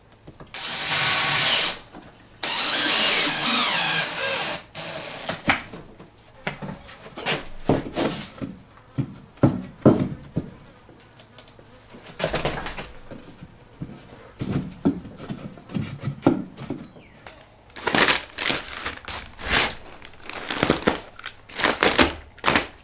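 Power drill driving screws into wood in two runs, the first about a second long and the second about two seconds, followed by scattered short knocks and clicks of handling.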